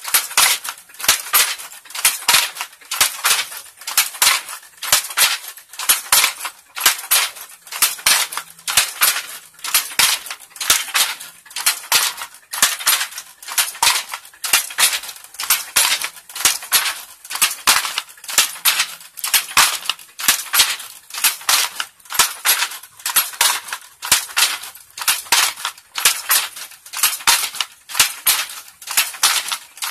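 Wooden handloom weaving Troso cloth: the shuttle and beater clack in a steady, fast rhythm, stroke after stroke.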